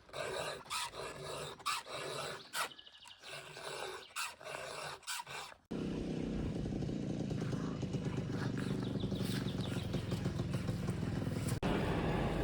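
A run of short, irregular sounds with gaps between them, then about halfway through the engine of a Stihl MS 881 two-stroke chainsaw comes in suddenly and runs steadily and loudly.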